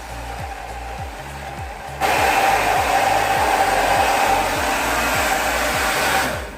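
Revlon 360 Surround hair dryer/styler running with a steady rush of air, jumping much louder about two seconds in and dropping back near the end. Background music with a regular low beat runs underneath.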